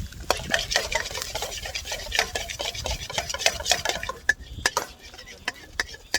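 Cooking utensil stirring and scraping against cookware in quick, dense strokes for about four seconds, then a few separate clinks.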